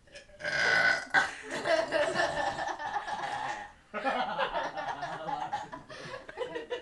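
A young woman belching on purpose: one long, loud burp of about three seconds, then after a brief break a second drawn-out one.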